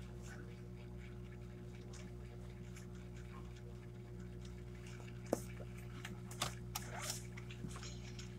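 Steady low electrical hum, with sharp clicks and short rustles from about five seconds in as a phone and a sketchbook page are handled.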